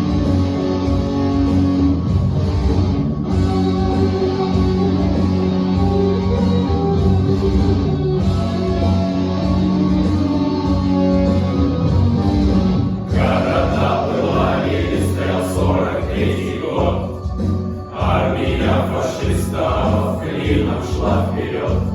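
Music: a male choir holding long, sustained chords over a backing track. About 13 seconds in it turns busier and rhythmic.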